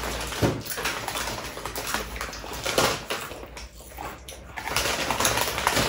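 Crinkling of foil potato-chip bags and crunching of chips being eaten, an irregular run of short crackles and rustles.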